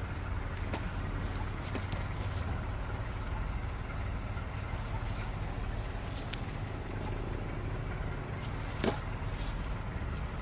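A steady low rumble with rustling foliage and scattered small snaps and creaks from a hanging forest vine being climbed, and one sharper snap about nine seconds in.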